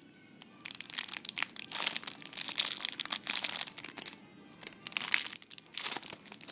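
Clear plastic packaging crinkling and crackling in irregular bursts as a squishy toy sealed inside it is handled and squeezed, with a short lull about two thirds of the way through.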